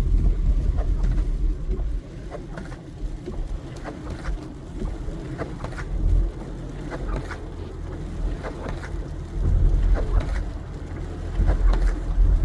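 Car cabin noise from a Subaru Crosstrek driving on a snow- and slush-covered road: a steady low rumble that swells and fades, with scattered faint clicks and ticks.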